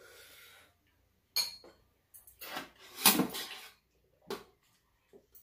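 Metal spoons and chopsticks clinking and knocking against bowls and a metal serving tray while eating: several separate clinks, one with a short ring, the loudest about three seconds in.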